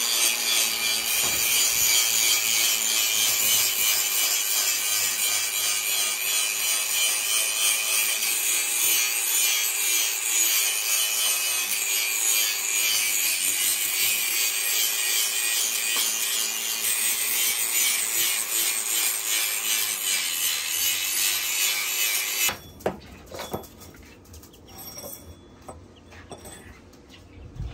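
Angle grinder with an abrasive cut-off disc cutting through steel: a loud, steady grinding screech over the motor's whine, whose pitch dips briefly about halfway. It stops suddenly about five seconds before the end, followed by a few light clicks and a knock of metal being handled.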